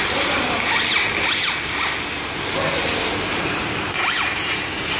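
Laser cutter's stepper motors whining as the head darts back and forth, the pitch sweeping up and down in quick glides several times in the first two seconds and again near the end, over a steady hiss.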